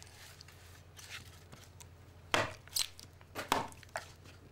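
Hand-carving of wood, a blade cutting into the wood in several sharp strokes at uneven intervals. The strokes get louder and come closer together from about two and a half seconds in, including two quick pairs.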